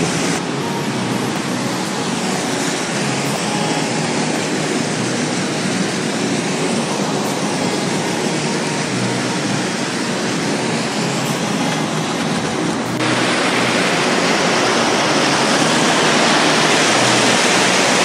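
Waterfall: a steady rush of falling water, getting louder and brighter about thirteen seconds in.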